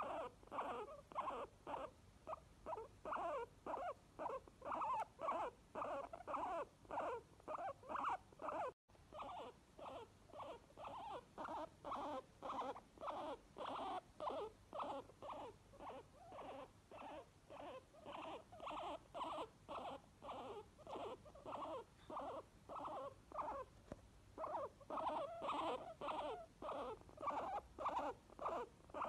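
Guinea pigs wheeking: a long run of short, squeaky pitched calls, about two to three a second, briefly broken once about nine seconds in.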